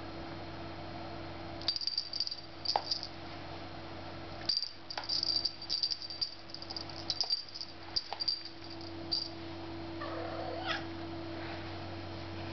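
A small jingle-bell cat toy tinkles in quick, irregular bursts as a kitten bats and paws at it, then goes still. Near the end the kitten gives a short meow. A steady low hum runs underneath.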